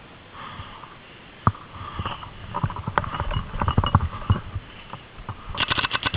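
Irregular knocks and scuffs of a paintball player moving and handling gear, then near the end a rapid string of sharp pops from a paintball marker firing.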